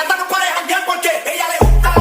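Hip hop–style dance music with a rapped or sung vocal; the bass drops out and comes back in heavily about one and a half seconds in.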